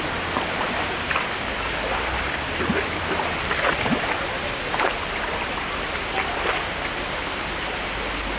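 Rainforest creek water running steadily over rocks, with a few brief sharper splashes scattered through the flow.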